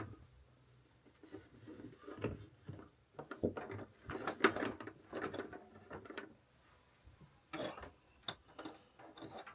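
Handling noise: irregular clicks, knocks and rubbing as a small camera and its power cable are moved and set in place, in several short bunches.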